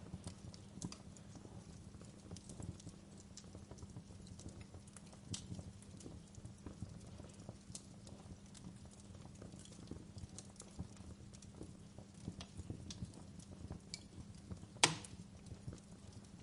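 Fireplace fire crackling: irregular small pops and snaps over a low steady hum, with one sharp, loud pop near the end.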